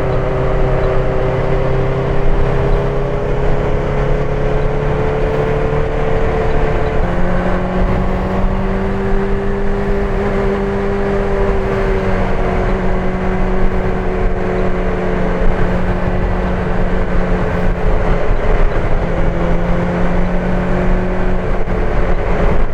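Benelli TNT600 inline-four engine running under steady cruise with continuous wind noise. The engine note steps up in pitch about a third of the way in, and dips briefly once near the end.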